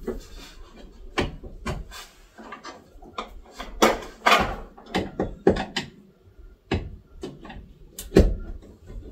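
Irregular clicks, taps and knocks of hands and a screwdriver working wires into a terminal block inside an inverter's wiring compartment, with a few louder knocks about four seconds in and near the end.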